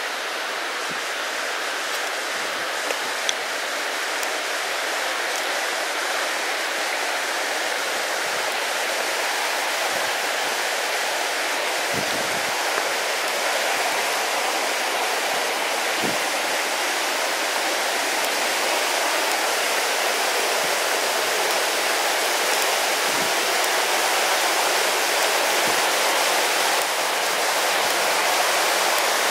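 A shallow river rushing over rocks, a steady sound of running water that grows slowly louder.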